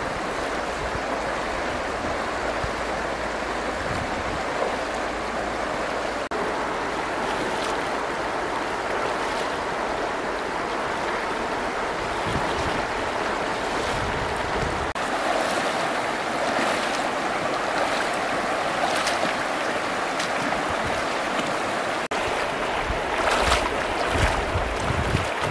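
Shallow river running over stones, a steady rush of water, with splashes from legs wading through it, more frequent in the second half.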